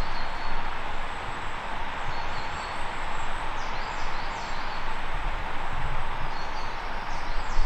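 Woodland background: a steady hiss, with small birds calling in short high notes that slide down in pitch, a few times in the middle and again near the end.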